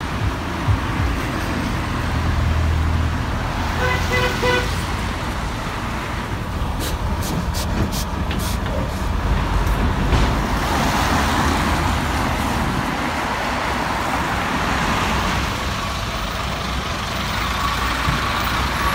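Road traffic with heavy vehicles passing. A vehicle horn sounds a few short toots about four seconds in.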